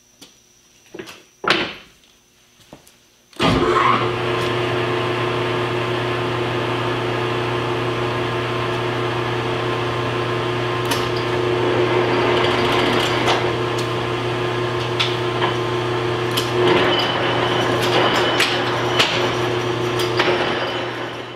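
A few light clicks of the metal lathe's levers being set, then the lathe starts suddenly about three seconds in and runs with a steady, even hum. The lathe is set up for threading at 16 threads per inch. Near the end the sound turns somewhat rougher and noisier.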